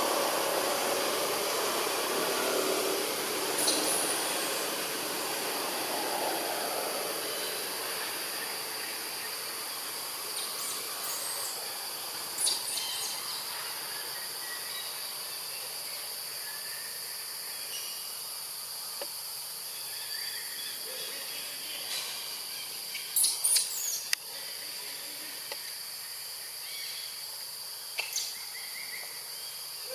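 Steady high-pitched drone of insects in tropical forest. A low hum fades away over the first several seconds, and a few short sharp clicks and chirps break through, the loudest cluster about two-thirds of the way through.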